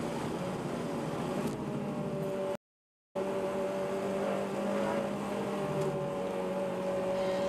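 Car engine running at a steady speed with road and wind noise, heard from inside the cabin. The sound cuts out completely for about half a second a little before three seconds in.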